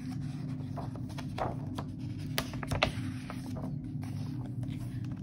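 Page of a hardcover picture book being turned by hand: paper rustling with a few sharp crackles, the loudest near the middle, over a steady low hum.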